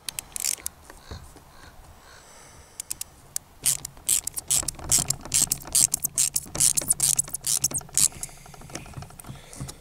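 A ratcheting hand tool clicking in rapid, irregular runs as a fastener is tightened, a few clicks near the start and a dense run of clicking from about three and a half seconds in to about eight seconds.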